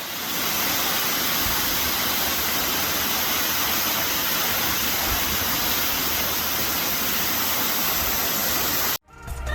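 Steady rush of falling water that cuts off abruptly near the end, where music begins.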